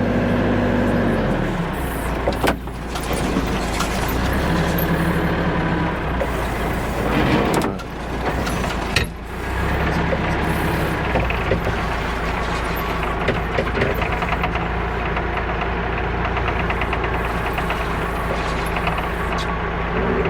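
Tractor-backhoe engine running steadily as the machine is moved to the next hole, its note changing several times in the first half, with a few short knocks.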